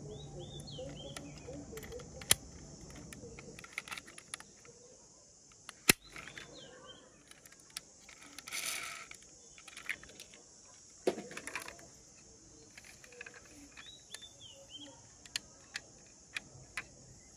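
Sharp clicks and light taps from handling a small die-cast toy ambulance and working its little doors, the loudest clicks about 2, 6 and 11 seconds in. Behind them runs a steady high insect drone, with a few bird chirps.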